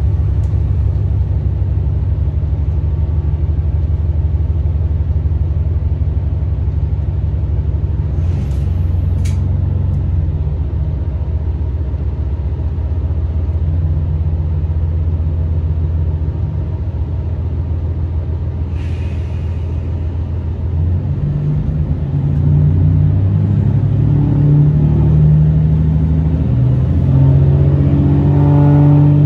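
Diesel engine of a 9640-series railcar heard from inside the cabin: a steady low hum, then louder with its pitch rising over the last several seconds as the railcar accelerates away from the platform. Two brief hisses, about eight and nineteen seconds in.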